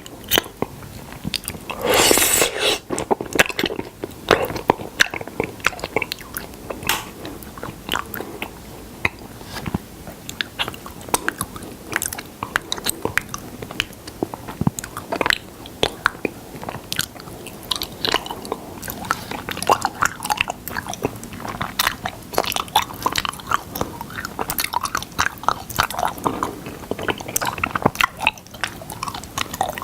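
Close-up chewing and biting on honey: a dense, uneven run of short clicks and smacks from the mouth, with a louder stretch about two seconds in.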